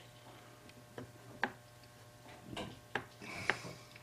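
Light metal clicks and taps, about five spread over a few seconds, as a stump is taken out of a clock-plate rebushing machine and another fitted in its place. A faint low hum runs underneath.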